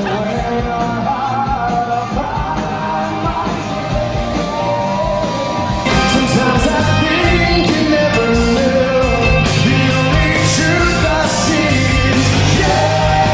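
Rock song with a male lead vocal over a full band: guitars, bass and drums. About six seconds in, the sound changes to a slightly louder recording with a different top end, as if cut to another recording of the song.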